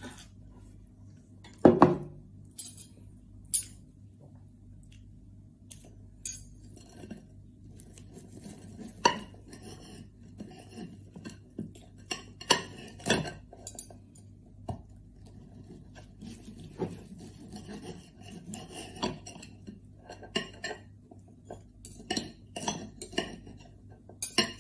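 Knife and fork cutting food on a plate: irregular metal clinks and short scrapes against the plate, with a louder double knock about two seconds in.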